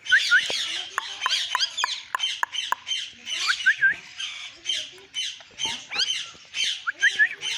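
Parrot chattering: a rapid, unbroken stream of short high chirps and squawks, several a second, with sharp clicks among them.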